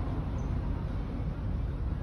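Steady low rumble of outdoor street background noise, even and unbroken.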